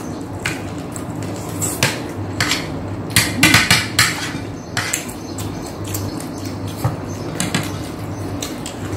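Cutlery clinking and scraping against plates during a meal, in scattered clicks with a quick run of clatters about three and a half seconds in.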